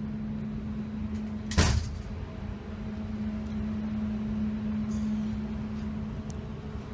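A single loud gunshot about a second and a half in, with a short echo of an indoor shooting range, over a steady low hum.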